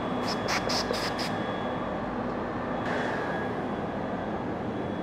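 Compressed air blowing chips away from a freshly thread-milled hole: five quick hissing puffs in about a second, then one longer blast about three seconds in, over a steady shop hum.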